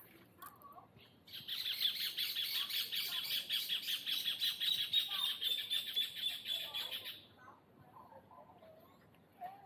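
A rapid, evenly pulsed high-pitched call from a wild animal, starting abruptly about a second in, running about six seconds and fading out.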